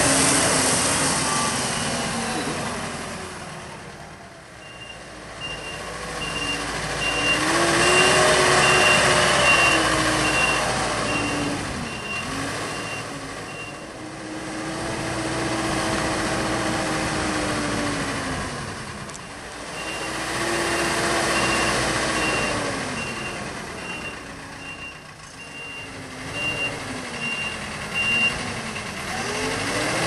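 Manitou MRT 1850 rotating telehandler's diesel engine driving and revving, its pitch rising and falling several times, with a reversing alarm beeping steadily in two long runs.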